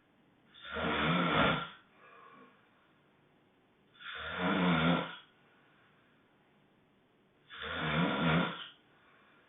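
Loud honking snores, three of them, each lasting just over a second and coming about every three and a half seconds, with faint breathing between them.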